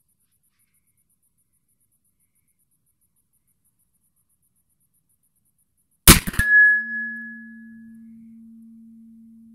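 Near silence, then about six seconds in a single shot from a .36-calibre 1851 Colt Navy black-powder revolver, followed about half a second later by the ring of the steel target hit at 80 yards: a clear high tone that fades within a couple of seconds over a lower hum that lingers.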